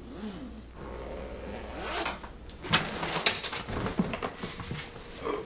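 Handling noise of a small lock box being picked up and moved about: scattered knocks, clunks and rustles, most of them from about halfway in.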